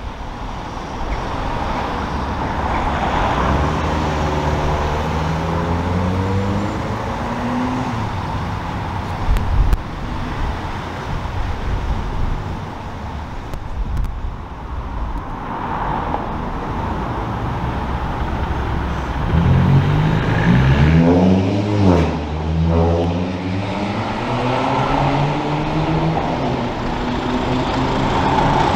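Diesel locomotive engine working under power, its note climbing in pitch a few seconds in and again about twenty seconds in, then dropping as it passes close about twenty-two seconds in.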